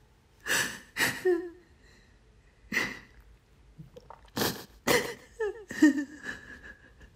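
A person gasping for breath: about six short, sharp, noisy breaths spread over the stretch, a couple of them ending in a brief voiced catch.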